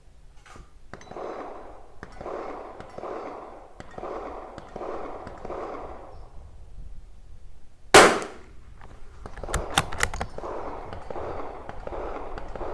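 A single shot from a Tikka T1x bolt-action .22 LR rifle about eight seconds in, followed by a few sharp clicks about a second and a half later.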